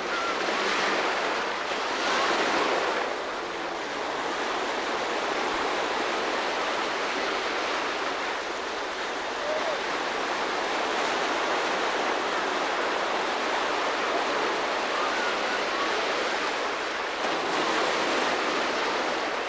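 Ocean surf breaking and washing in: a continuous rush of noise that swells as waves break, louder about a second in, again around two to three seconds, and near the end.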